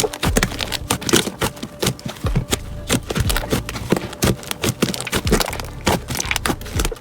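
Slime being squeezed and pressed by hand, giving a dense run of irregular sharp clicks and pops.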